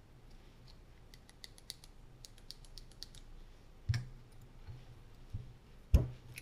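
Small metal parts of a Sheridan VM-68 paintball gun clicking and ticking lightly as the trigger frame is handled. A knock comes about four seconds in, and a louder one near six seconds, as the parts are set down and the gun body is picked up.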